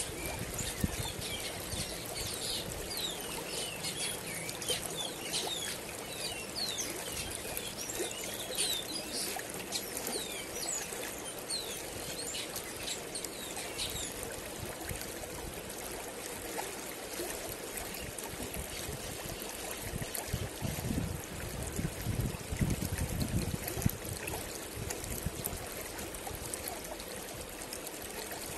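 Shallow river running over rocks, a steady rush of water. Small birds chirp in short, high calls over it, many in the first half and only a few later.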